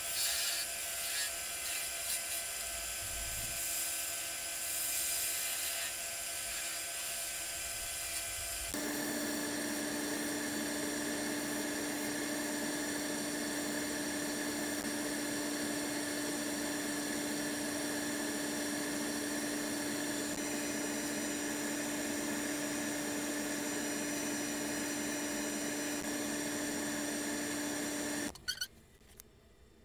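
Wood lathe spinning a small cherry spindle: a spindle gouge cuts the wood for the first several seconds. After an abrupt change, a steady high hum from the lathe runs while sandpaper is held against the turning piece. The sound cuts off suddenly near the end as the lathe stops.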